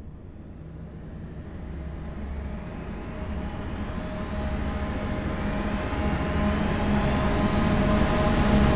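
A horror sound-effect riser: a low rumbling drone with a few steady hum tones in it, swelling steadily louder while its hiss climbs ever higher.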